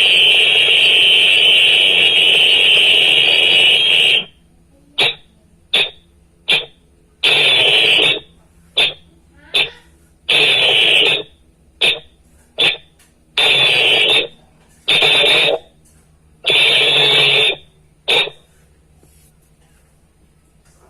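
A whistle blown as a signal: one long, steady blast of about four seconds, then a patterned run of short toots and one-second blasts, about a dozen in all, stopping a few seconds before the end.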